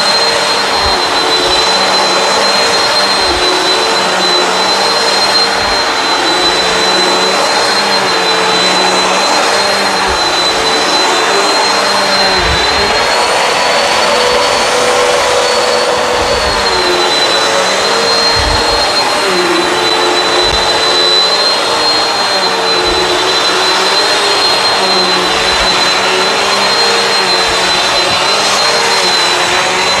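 Bissell CleanView Swivel Pet upright vacuum running continuously, a steady motor whine and hum. Its pitch rises for a few seconds about halfway through and then settles back. Occasional short low thumps sound under the motor.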